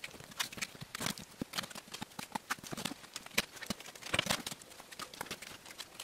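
Irregular taps and scrapes of gloved hands and a putty knife spreading a wet coat of Satanite refractory coating over the furnace lining and lid, with a longer scrape about four seconds in.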